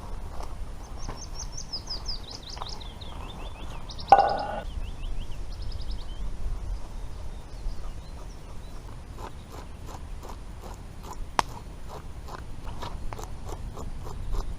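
A songbird sings a quick run of high notes that step down in pitch over the first few seconds. About four seconds in there is one sharp knock. Through the second half comes a run of short crunching clicks, several a second.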